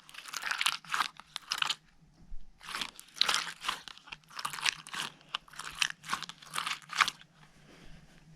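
Slime being squeezed and pressed by hand, giving a run of short crackly, crunching squishes. There is a brief pause about two seconds in, and it stops about seven seconds in.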